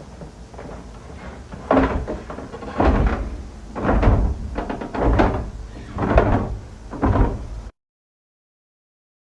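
A door being pounded on with six heavy blows about a second apart, then the sound cuts off suddenly.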